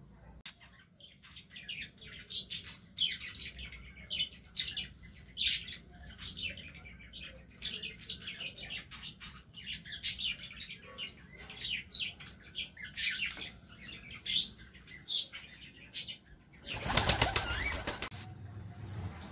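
A pigeon's wings flapping loudly for about a second as it takes off, near the end. Before that, many short, high, irregular chirps.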